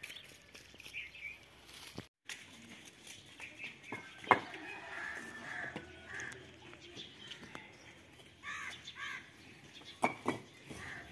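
Birds calling over quiet outdoor ambience, broken by a few sharp clacks of fired bricks being handled; the loudest clack comes about four seconds in and another near the end.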